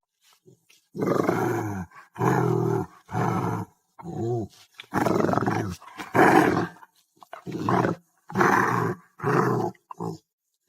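A dog making about ten drawn-out vocal sounds in a row, each under a second long, with short pauses between them.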